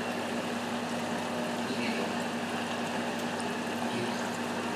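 Flour-coated chicken wings deep-frying in peanut oil, a steady bubbling sizzle over a low hum, with a few faint taps as wooden chopsticks turn the wings in the pot.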